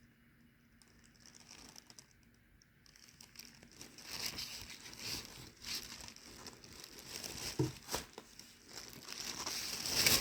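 Tissue paper rustling and crinkling as a handbag is handled. It is quiet for the first few seconds, then irregular crackling builds and grows louder toward the end.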